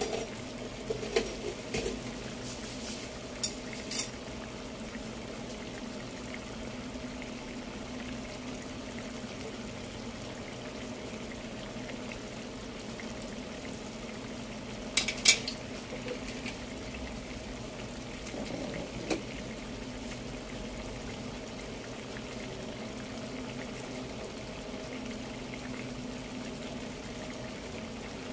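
Taro leaves in coconut milk (laing) simmering and bubbling steadily in a pan. There are a few light clinks of a utensil or cookware in the first few seconds, and a sharp double clink about halfway through.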